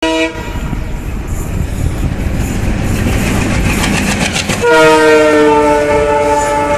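Indian Railways diesel freight locomotives passing close by, engines running with the clatter of wheels on rail joints. A brief horn note at the very start, then a long, loud multi-note horn blast held from about two-thirds of the way in.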